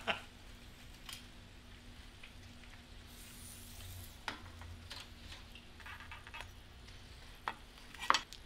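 A freshly roasted rotisserie chicken sizzling faintly on a wooden cutting board, with a few light metal clicks and scrapes as the rotisserie spit and forks are worked out of it. A low steady hum fades out about three seconds in.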